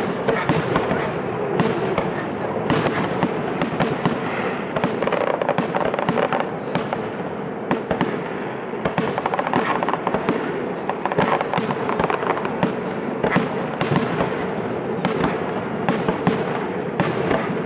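Fireworks display: a steady, dense run of bangs from bursting shells, mixed with crackling, at a fairly constant level throughout.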